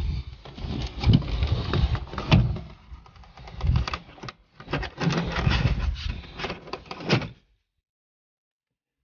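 Plastic interior car trim being pried and pressed while a dash-cam cable is pushed in behind it: irregular clicks, knocks and rustling with dull thuds. The sound stops abruptly about three quarters of the way through.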